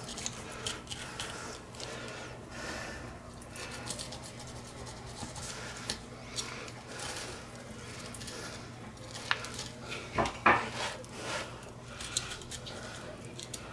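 Fillet knife cutting a whole, scaled mangrove snapper along its backbone on a plastic cutting board: irregular small scrapes, crunches and taps of the blade, with a few louder knocks a little after ten seconds in.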